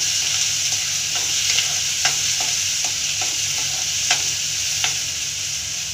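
Chopped onions sizzling steadily in hot ghee and olive oil in a kadhai, being fried. A spoon stirs them, with a short scrape or clink against the pan every second or so.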